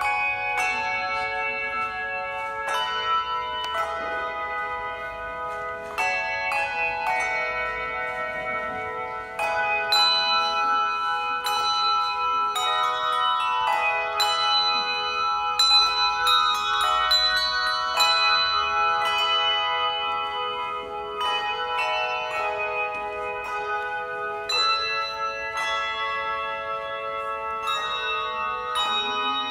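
Handbell ensemble playing a tune: a steady stream of struck handbells ringing at several pitches, each note sustaining and overlapping the next.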